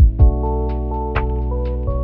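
Background music: held keyboard chords over a steady beat of low drum thumps and light high ticks.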